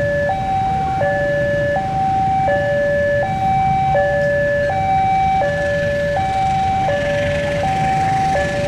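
Railway level-crossing warning alarm sounding an electronic two-tone signal, swapping between a lower and a higher tone about every three-quarters of a second, over the low rumble of a diesel locomotive engine.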